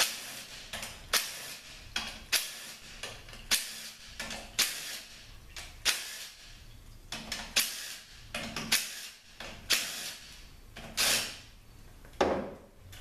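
Cordless power driver run in short trigger bursts, about one a second, spinning out the 8mm bolts that hold the transmission's valve body together.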